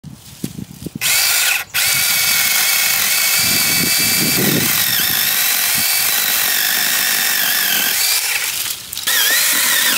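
Tingmengte 6-inch cordless mini chainsaw with a 24-volt brushless motor, running and cutting a sapling branch. It gives a high motor-and-chain whine that starts about a second in and cuts out briefly, and its pitch wavers as the chain bites into the wood. It stops briefly near the end, then starts again.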